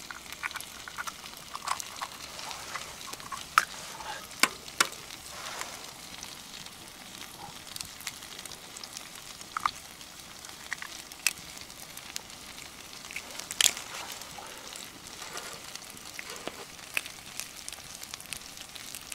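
Eggs and a full cooked breakfast frying in cast iron pans over a campfire: a steady sizzle with scattered sharp pops and crackles.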